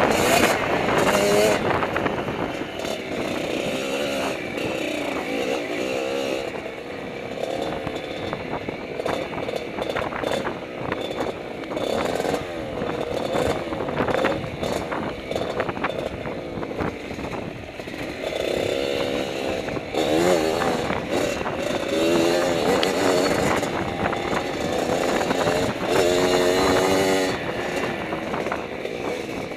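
Dirt bike engine running hard, its pitch rising and falling again and again as the throttle is worked and gears change.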